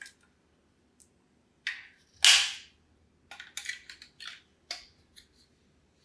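Batteries being pushed into the plastic battery compartment of a Blink Video Doorbell: a few sharp plastic clicks and snaps, the loudest about two seconds in, then a run of lighter ticks.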